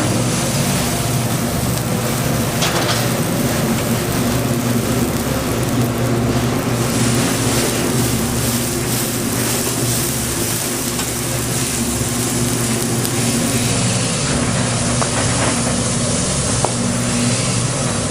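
Steady hiss over a constant low droning hum, the running noise of a street food stall's cooking and machinery.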